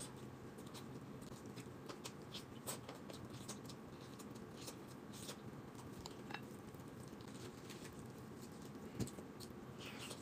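Faint, scattered clicks and crackles of a whole roast chicken being torn apart by hand and chewed, with one slightly louder knock about nine seconds in.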